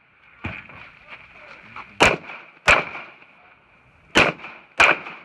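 Glock 17 9mm pistol fired in two quick pairs, four loud shots in all, each pair about two-thirds of a second apart, with a quieter crack about half a second in.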